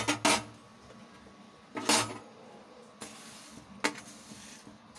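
Metal slotted spoon scraping across a plate and clinking against the pot, pushing roasted vermicelli into boiling water: four short scrapes and clinks, the longest about two seconds in.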